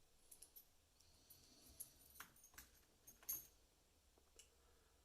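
Faint, scattered clicks and light taps of small metal lock parts and tools being handled while a pin-tumbler lock cylinder is taken apart, the clearest about three seconds in.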